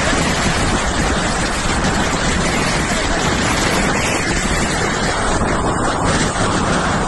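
Steady, loud rush of wind and sea water out on open water, with wind buffeting the microphone.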